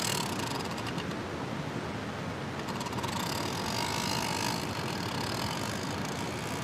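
A hand grinder mill twisted over the grill, giving a fast ratcheting, grinding clatter for the first two seconds or so, then a steady background hiss.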